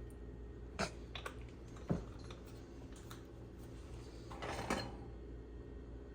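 A few light clinks and knocks of cookware and utensils being handled at the stove, twice near the start and a short clatter past the middle, over a steady low background hum.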